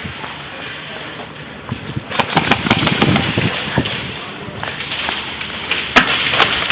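Steady rustle and wind noise from a helmet-mounted camera as a player moves, with irregular low thumps. A quick run of four sharp clicks comes about two to three seconds in, and two more near the end.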